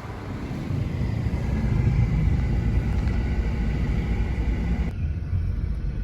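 Car driving, heard from inside: a steady low road and engine rumble with a hiss above it that drops away abruptly about five seconds in.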